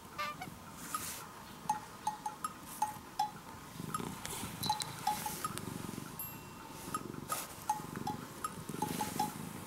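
Light background music of plinking, chime-like notes in a steady bouncy rhythm. From about four seconds in, a low rumbling noise sits underneath.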